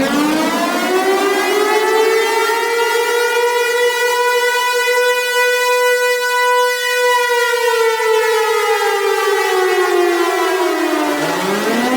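Tornado warning siren sounding one long wail: its pitch rises over the first few seconds, holds high, then slowly falls, and begins to rise again near the end.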